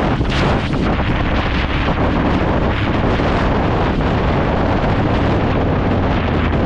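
Wind noise on the microphone of a moving motorcycle, steady and loud, over the low steady drone of the bike's engine.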